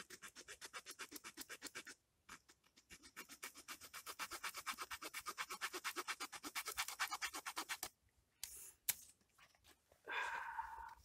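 Knife shaving a wooden stick into a peg: quick, even scraping strokes, several a second, with a short pause about two seconds in, stopping near eight seconds. A few light clicks follow and a brief rustle near the end.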